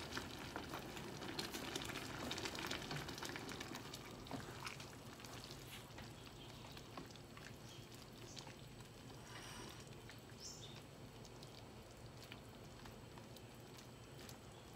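Pan of chicken noodle soup simmering, a faint steady bubbling and pattering as the noodles and vegetables cook, while a wooden spatula stirs through it.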